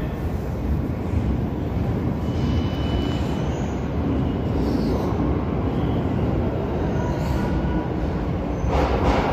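Steady low rumble of an unseen subway train running through the tunnel, with faint high squeals now and then and a sudden rush of noise near the end.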